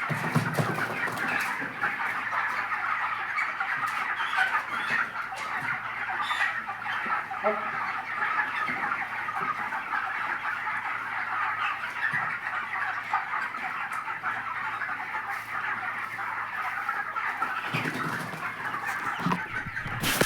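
A large flock of 25-day-old broiler chickens chirping and clucking steadily, many birds calling at once.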